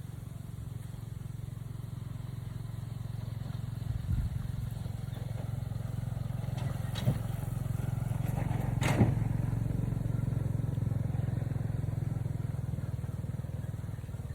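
A small engine running steadily, with two short knocks partway through.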